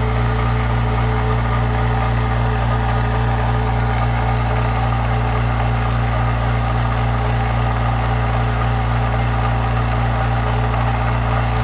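California Air Tools 10-gallon ultra-quiet air compressor running steadily with an even hum, its two-piston induction-motor pump filling the tank. The tank pressure is nearing 120 PSI, just short of the 125 PSI cut-off.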